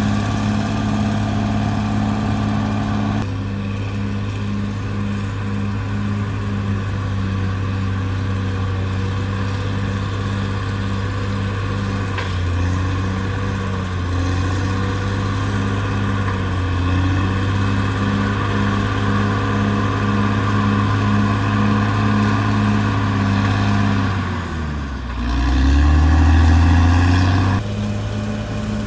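Caterpillar D6R XL bulldozer's diesel engine running steadily, with a regular pulse about one and a half times a second. About 24 seconds in, its pitch drops and climbs back up, and it runs louder for a few seconds.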